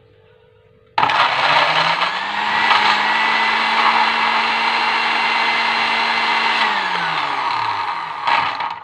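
Electric countertop blender grinding a thick spice paste: it switches on about a second in, speeds up to a steady run, then is switched off and winds down, with one more short pulse near the end. The mix is too dry for the blades to turn freely, and water is needed so they can spin.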